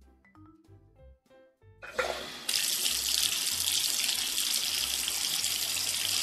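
Kitchen tap running water into a sink, a steady rush that starts about two and a half seconds in. A few soft music notes come before it.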